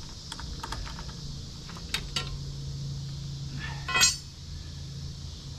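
Metal tools and small metal parts clinking as they are handled: several light clicks, then a louder ringing clink about four seconds in. A low steady hum runs under the middle part.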